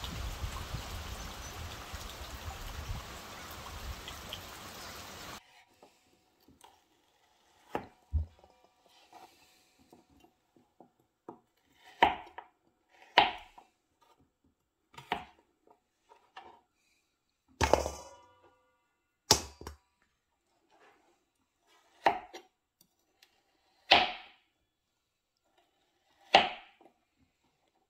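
Steady rain falling on a pond for about the first five seconds, with some low wind rumble. It cuts off abruptly, and then a knife chops pork leaf fat into cubes on a plastic cutting board: about nine separate sharp strikes, one to three seconds apart.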